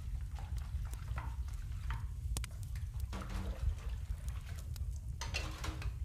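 Layered cabin ambience: a wood fire's steady low rumble with scattered crackles and pops, and two brief watery swishes, one about halfway and one near the end.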